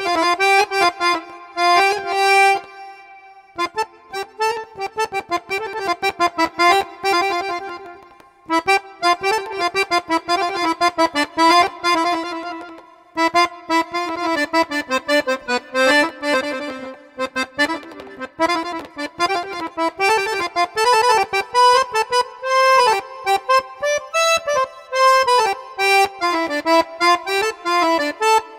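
Egyptian baladi music led by an accordion playing a winding melody in short, detached notes, with brief pauses.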